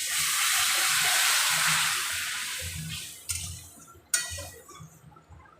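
Water poured into a pan of hot, well-fried spice paste, hissing loudly at once and dying away over a few seconds. A sharp click, like a utensil knocking the pan, about four seconds in.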